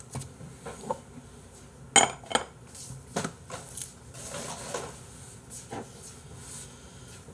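Dishes and cutlery being handled: a few separate clinks and knocks, the loudest about two seconds in.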